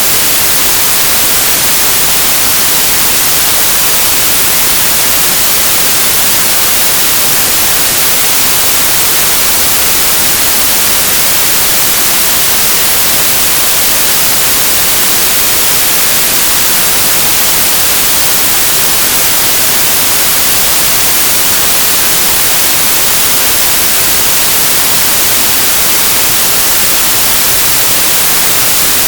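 Synthesized stereo white noise: a steady, even hiss, brightest in the highs, with no change.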